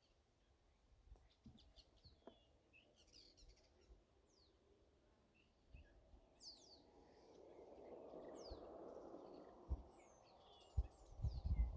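Faint outdoor bird chirping throughout, short high calls that glide up and down. In the middle, a passing car's road noise swells and fades. Near the end come several low thumps, the loudest sounds here.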